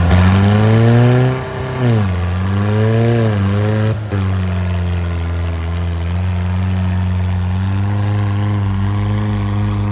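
Diesel tractor engine revved hard through a front-wheels-up stunt. Its pitch rises and falls twice in the first few seconds, with a brief break about four seconds in, then holds steady at high revs.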